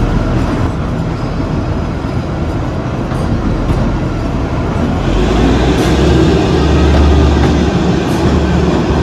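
Kalka–Shimla narrow-gauge toy train running inside a long tunnel: a steady noise of wheels on rails and the moving coach. It grows louder and deeper about five seconds in.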